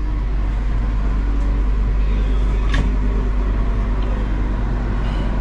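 Steady low rumble with a hiss over it, unchanging throughout, and one faint click about three seconds in.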